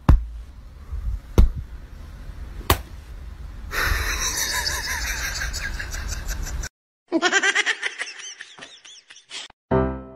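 Three sharp taps in the first few seconds, then people laughing for about three seconds; after an abrupt cut comes a second burst of laughter, and piano music starts near the end.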